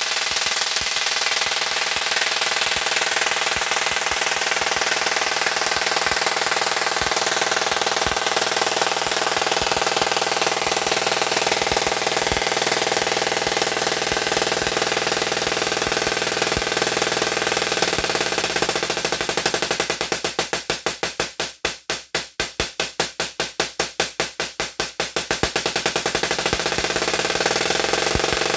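Double-magnifier Tesla coil with pancake coils sparking from its top rod: a loud, steady electrical buzz. For several seconds past the middle the buzz pulses rapidly and evenly, then goes back to steady.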